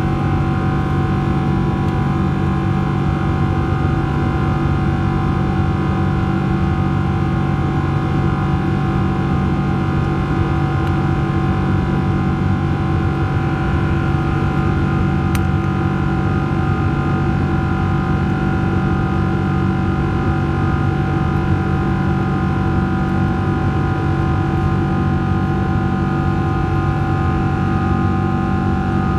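Cabin noise of a Boeing 777-300 climbing after takeoff, heard at a window seat beside the engine: a steady turbofan drone and rushing air with several constant tones held over it.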